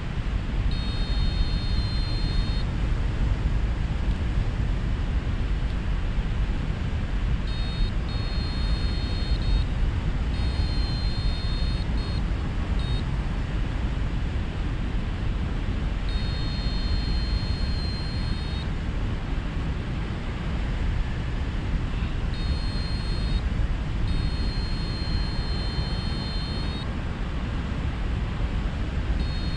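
Wind rushing over the microphone of a paraglider in flight. A high-pitched beeping tone from the pilot's variometer comes in stretches of one to three seconds, several times, the signal that the wing is climbing in lift.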